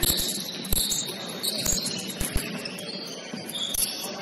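A basketball bouncing on the court floor, several uneven thuds, with high-pitched squeaks of players' sneakers.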